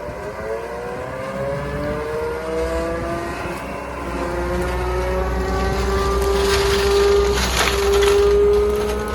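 John Deere 331G compact track loader running with its Diamond mulching head, a whine gliding upward in pitch as the machine builds speed. From about six and a half seconds in, there is loud crackling and splintering as the mulcher chews into wood.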